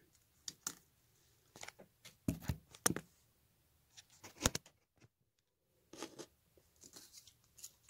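Light handling noise: scattered small clicks, taps and rustles as a plastic pen and the phone camera are handled on a workbench, with a few sharper knocks about two to three seconds in and again about four and a half seconds in.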